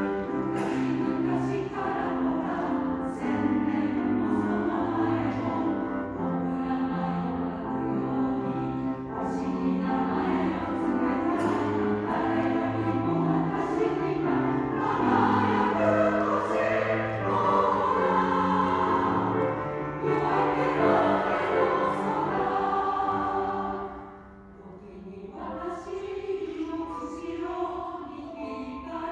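Two choirs singing together in a combined performance. About 24 seconds in the singing drops to a quiet moment, then comes back in more softly.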